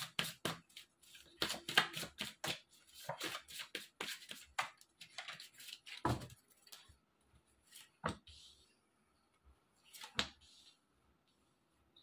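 A tarot deck being shuffled by hand: a quick patter of card edges for about the first five seconds, then a few separate snaps and taps as cards are drawn and laid down on the cloth.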